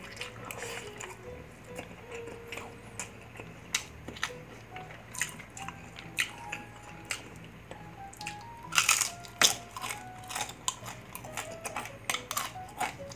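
Close-up crunching and chewing of crispy fried food, a run of short sharp crunches with the loudest cluster about nine seconds in, over light background music.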